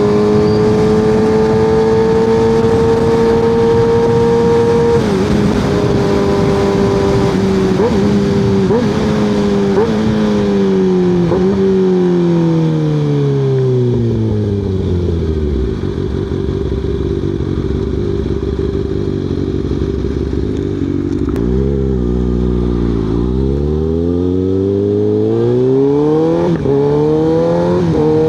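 Kawasaki ZX6R 636 inline-four through an M4 exhaust with the baffle removed, essentially a straight pipe. It holds steady revs, then drops through several downshifts with short blips and settles to idle. After a couple of quick revs it pulls away again, rising through the gears.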